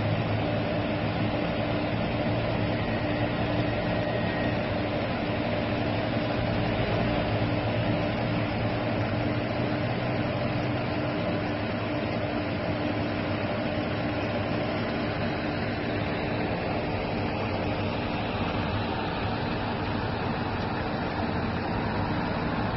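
Steady mechanical hum and rushing air inside a parked aircraft's cabin, with a low drone that holds constant throughout.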